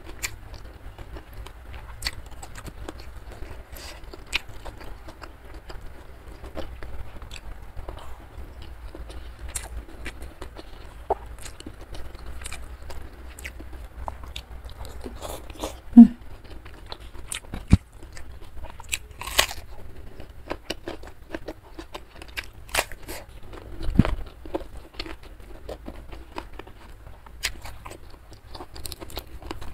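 Close-up sounds of a person chewing and crunching food, with sharp crunches and clicks scattered throughout and one louder bite about halfway through.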